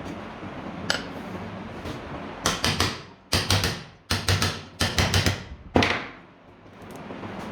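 A run of about a dozen sharp metallic knocks over three and a half seconds, in quick groups of two or three, like a hammer tapping on metal fan parts.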